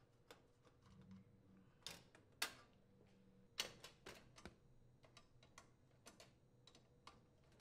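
Faint, scattered metal clicks and taps of a wrench and the metal burner tube against the brass fittings as the nuts holding a gas range's center burner tube are unthreaded.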